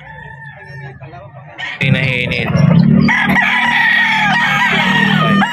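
Several gamecock roosters crowing over one another, the crowing turning loud about two seconds in.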